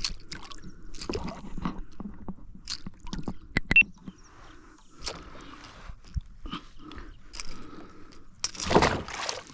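Handling a freshly caught piranha and the lure's treble hook: irregular clicks, knocks and scrapes of metal and the fish against the boat, with a longer, louder scraping burst near the end. The piranha's teeth broke the treble hook.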